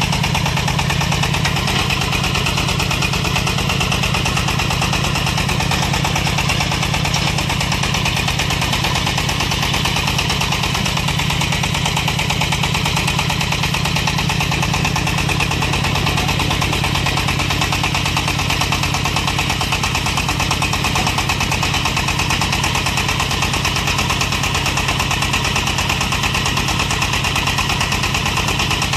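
Engine of a small portable water-well drilling rig running steadily under drilling, with a fast, even beat.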